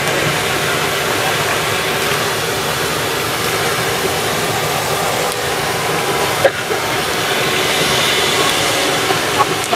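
Potato fries deep-frying in a large wok of hot oil: a steady, loud sizzle. A single sharp clack about six and a half seconds in, as the wire basket works in the wok.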